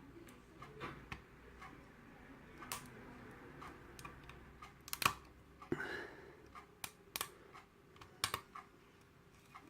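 Security-pinned Ilco pin-tumbler lock being single-pin picked with a hook and tension wrench: irregular light metallic clicks and ticks as the pick works the pins. The sharpest click comes about five seconds in, with another pair just after eight seconds.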